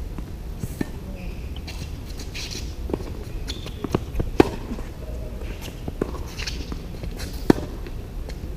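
Tennis rally on a hardcourt: racket strikes on the ball and ball bounces, sharp pops about every one to one and a half seconds, the loudest a forehand by the near player about four and a half seconds in.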